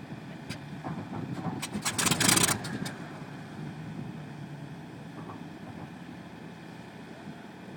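Warbird piston aero engine being started: a run of sharp pops about a second and a half in, building into a short loud burst of firing, over a low steady engine rumble.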